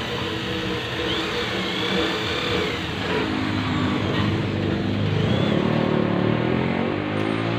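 Electric angle grinder running while pressed into a steel bar, its whine rising and falling in pitch.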